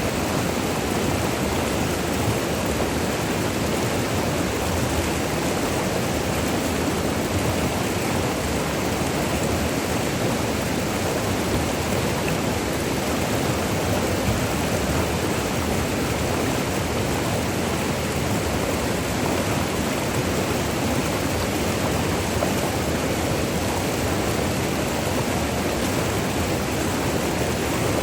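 Virgin River rushing over small falls and rapids: a steady, even rush of water with no breaks.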